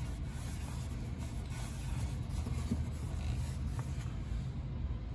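Microfiber cloth rubbing and wiping over a plastic instrument-cluster screen protector, over a steady low rumble.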